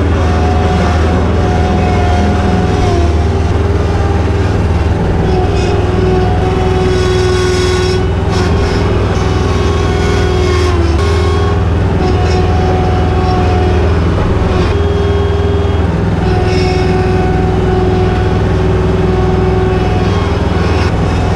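Farm tractor engine running steadily under load while moving hay bales, with a held whine that dips briefly in pitch now and then.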